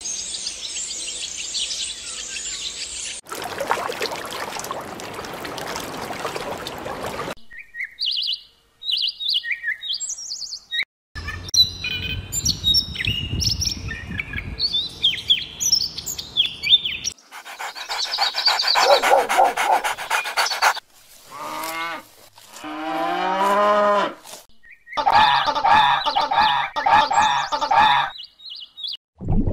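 A string of separate short animal sound clips cut one after another. It opens with a steady high hiss, then broader noise. Through the middle come scattered bird chirps and song from a European robin, and near the end there are several rounds of gliding and repeated pitched calls.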